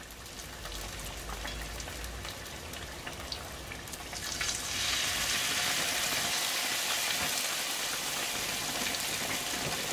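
Hot oil sizzling and crackling as batter-coated, Cheetos-crumbed hot dogs deep-fry in a pan. The sizzle grows louder about four and a half seconds in, as a second hot dog is lowered into the oil.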